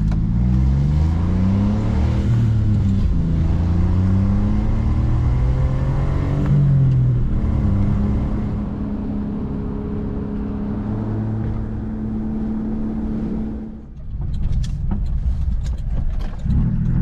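Small van's engine heard from inside the cab, pulling away through the gears: its pitch climbs, drops at a shift and climbs again, then holds steady while cruising. Near the end the engine sound falls away and a run of sharp clicks follows.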